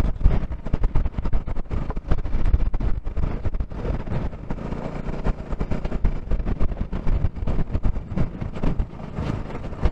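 Bajaj Pulsar NS200 motorcycle's single-cylinder engine running as the bike rides a rough dirt track, with frequent knocks and rattles from the bumps.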